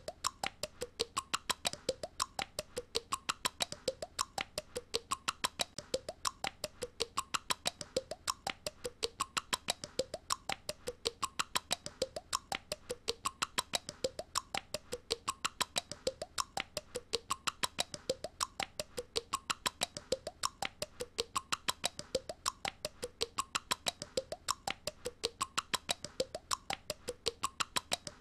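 A young girl's tongue clicks, made on purpose as an annoying noise, in a fast, even string of several clicks a second that keeps going without a break.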